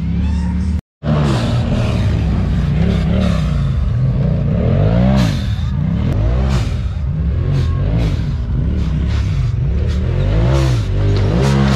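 Side-by-side (UTV) race engine running hard, its pitch rising and falling again and again as the throttle is worked. The sound cuts out completely for a moment about a second in.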